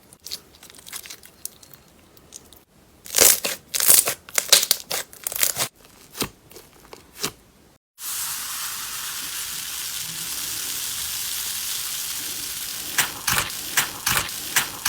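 Slime being squeezed and pressed with crisp crackling and popping in quick bursts, then a steady hiss for about five seconds, then more crackling near the end.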